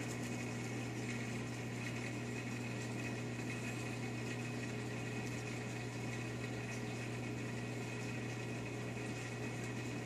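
Reef aquarium equipment running, its circulation pumps and SeaClone protein skimmer: a steady low hum with an even hiss of moving water.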